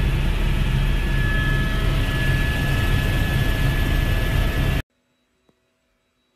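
Steady aircraft engine and airflow noise heard inside the cabin in flight, a heavy low rumble with a faint high whine. It cuts off abruptly about five seconds in, leaving near silence.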